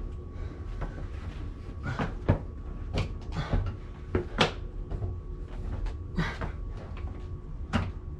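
Stair-climbing hand truck loaded with a heavy water softener being hauled up stairs: irregular knocks and bumps as its wheels catch on and clatter over the stair edges.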